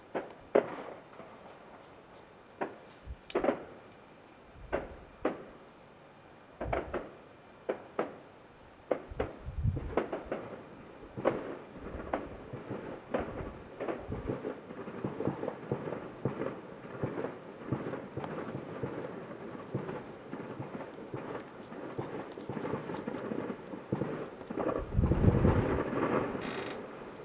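Fireworks display heard from about a mile away: aerial shells bursting as sharp bangs with rumbling tails, at first a second or two apart, then thicker and overlapping, with the loudest cluster of bangs near the end.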